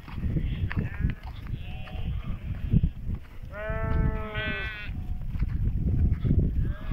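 Sheep bleating in a grazing flock: several short calls, the clearest two back to back about three and a half seconds in, the second higher-pitched, over a steady low rumble.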